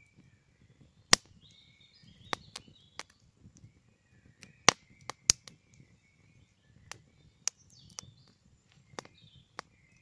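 Wood campfire crackling with sharp, irregular pops, the loudest about a second in and twice near the middle. Birds sing faintly throughout.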